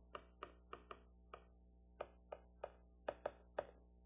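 Faint, irregular taps of a stylus tip on a tablet screen while handwriting, about a dozen short clicks, over a low steady hum.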